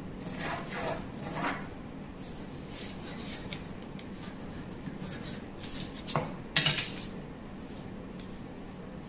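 Pencil drawing on a cardboard sleeve pattern along a plastic curve ruler: scratchy strokes in short runs, with a louder pair of scrapes about six seconds in.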